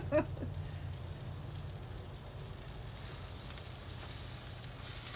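Chicken sizzling on the grill, an even crackling hiss over a low steady hum.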